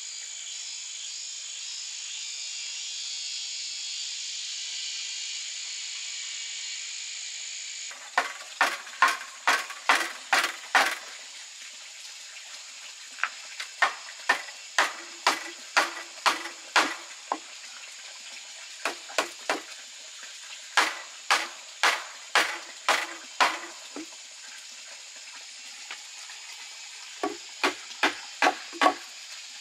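Forest insects (crickets or cicadas) buzzing steadily at a high pitch; about eight seconds in, a wooden pole frame starts being struck with a chunk of wood, in bursts of several sharp knocks at about three to four a second, with the insect buzz going on underneath.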